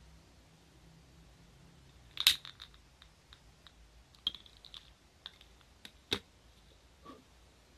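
A gas lighter clicked on with a sharp snap and crackle about two seconds in, a few small ticks while its flame is held to the hole in the bottle cap, then the lighter set down with a knock on a metal tray about six seconds in. No pulse-jet buzz is heard from the bottle.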